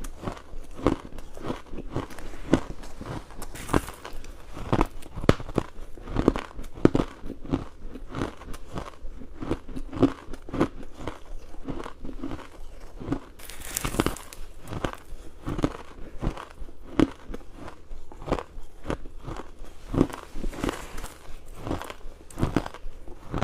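Close-up crunchy ice being bitten and chewed: a steady run of sharp crunches, several a second, with a brief louder crackling crunch a little past halfway.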